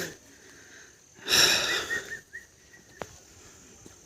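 A person's single heavy breath out, breathy and about a second long, followed by a faint click about three seconds in.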